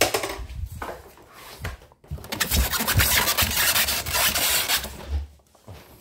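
Styrofoam packing tray and cardboard box being handled, making rough rubbing and scraping. It is loudest and most continuous from about two seconds in until about five seconds in.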